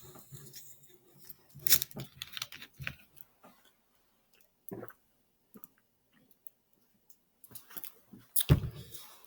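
Sparkling water being drunk: scattered small clicks and mouth sounds, with two louder gulps near the end.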